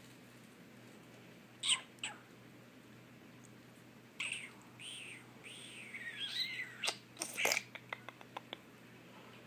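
Small puppy whining in high, wavering whimpers that slide up and down for a few seconds. Before it come two short sharp bursts, and after it a quick run of light clicks.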